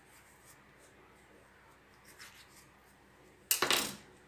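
Faint kitchen handling noises, then a brief loud scrape of kitchen utensils about three and a half seconds in, as a tomato is cut and added for a ground spice paste.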